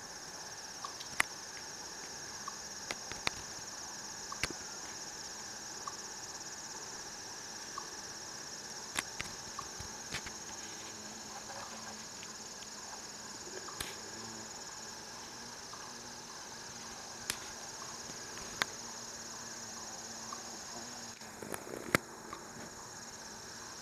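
Steady high-pitched chorus of crickets trilling, with a scattered handful of sharp clicks, the loudest near the end.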